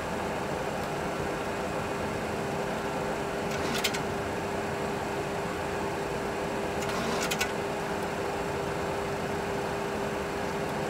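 Steady cockpit noise of a Boeing 737 Classic full-flight simulator on final approach: a constant hum with two faint steady tones, and a few brief clicks near four and seven seconds in.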